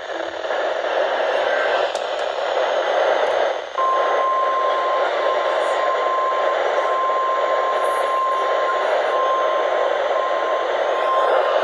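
Weather radio receiving a static-filled broadcast: steady hiss, then about four seconds in the weather radio warning alarm, a single steady high tone held over the hiss with a few brief dropouts, signalling that a warning message, here a tornado warning, is about to be read.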